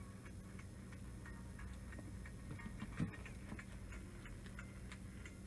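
iPhone loudspeaker crackling: faint, irregular clicks and ticks over a low hum, with one louder knock about three seconds in. The fault is traced to a dust filter over the speaker.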